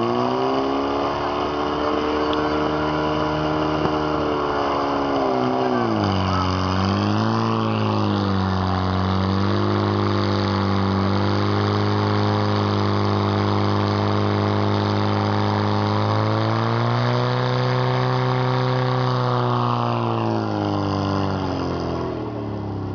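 Portable engine-driven fire pump running hard while it pumps water from the tank out through the hose lines. Engine speed dips about six seconds in as the pump takes up the load, holds steady, then rises near seventeen seconds and drops back near twenty-one.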